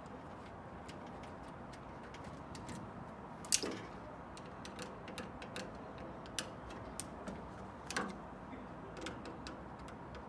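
Scattered light clicks and taps of parts and tools being handled while a microwave oven is dismantled, with two louder knocks, one about a third of the way in and one near the two-thirds mark.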